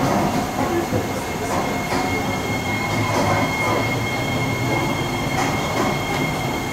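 Interior of a Kawasaki-CRRC Sifang C151C metro car running into a station: steady running noise with a few light clicks, and a thin, steady high-pitched squeal that sets in about two seconds in.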